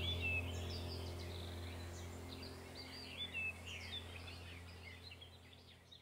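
Birds chirping and whistling over a low steady hum, a background nature-ambience track that fades away toward silence near the end.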